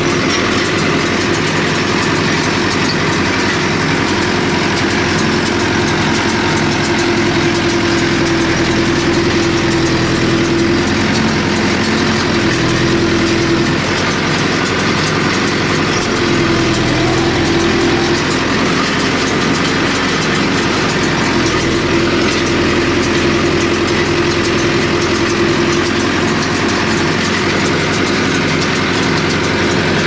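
Mahindra Yuvo 575 four-cylinder diesel tractor running steadily while powering an Aambal straw baler through its PTO. The engine and baler make a continuous mechanical drone with a regular repeating beat.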